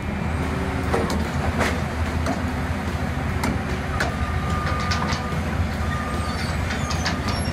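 Caterpillar scrapyard material handler's diesel engine running steadily as its grapple claw swings, with several sharp metallic clanks and a thin squeal about four seconds in.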